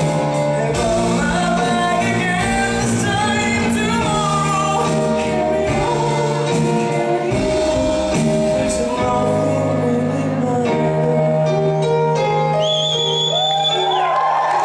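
Live stage-musical song: a male singer with band accompaniment, sustained sung notes over steady low backing notes. A bright, high held tone comes in about two seconds before the end.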